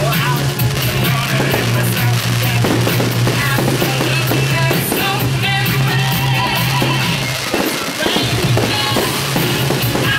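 Loud rock music with drum kit and guitar over a steady bass line, with the bangs and crackle of fireworks mixed in.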